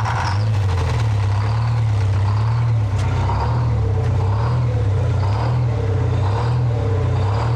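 The tank truck's large engine running just after its first cold start of the year, brought to life with ether. Its low running note swells and eases about once a second.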